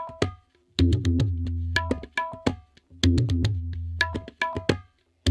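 Intro music: a short percussion loop of drum strokes over a low sustained tone, each phrase ending in a few high ringing notes, repeating about every two and a quarter seconds with brief gaps between.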